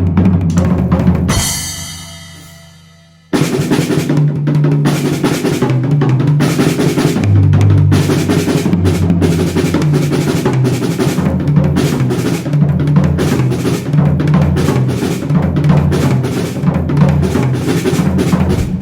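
Drum-driven music: a drum kit with bass drum and snare over a steady bass line. About a second in, the beat breaks off into a ringing wash that fades for two seconds, then the full groove cuts back in sharply.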